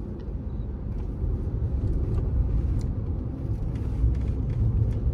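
Road and engine noise of a moving Honda car heard from inside the cabin: a steady low rumble that grows a little louder about a second in.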